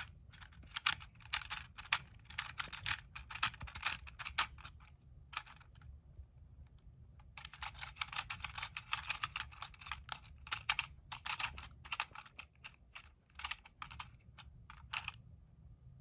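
Plastic Lego combination lock's dial, gears and tumbler wheels being turned by hand, giving rapid runs of small clicks with a pause of about a second and a half near the middle.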